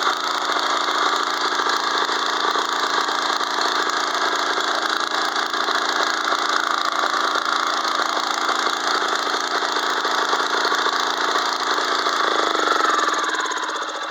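Honda HS80 snowblower engine running steadily, freshly tuned up and with new drive and auger belts, working smoothly. Near the end the engine speed drops and the sound starts to fade.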